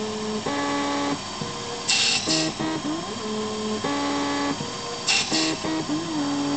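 Emco 5 CNC lathe's stepper motors singing in pitched tones that jump between notes and glide up and down as the axes feed and reposition through repeated passes. A short bright hiss comes about two seconds in and again about five seconds in.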